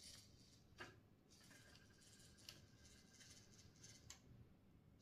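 Faint whine of a 20 kg steering servo, run from a servo tester, turning the front wheels, with a few soft clicks.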